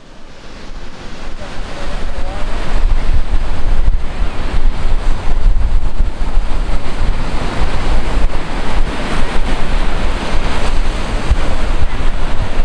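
Ocean surf with heavy wind noise on the microphone, fading in over the first couple of seconds and then holding steady.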